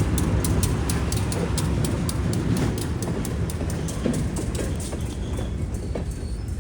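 Train rolling on the rails: a low rumble with a fast, regular clicking that slows and fades, the whole sound slowly dying away.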